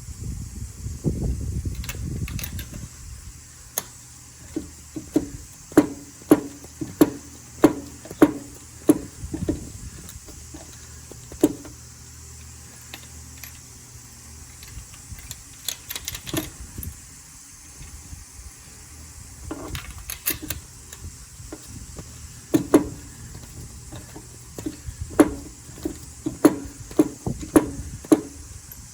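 Hand tools working on a car engine during a spark plug change: runs of sharp clicks, about two a second, with a short low rumble near the start.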